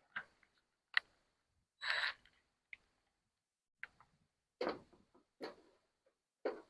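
Scattered light clicks, knocks and short scrapes, about one a second, as a gutter guard panel is worked into the gutter under the edge of the metal roof panels; the longest is a brief scrape about two seconds in.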